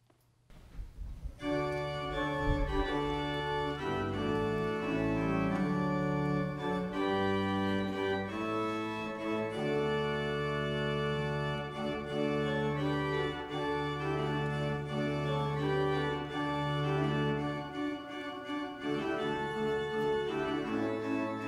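Church organ playing sustained, slowly changing chords, coming in about a second and a half in.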